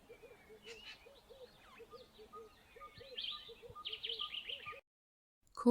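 Birds calling: a low, short note repeated about three times a second under higher chirps and twitters, which grow busier near the end before the sound cuts off abruptly.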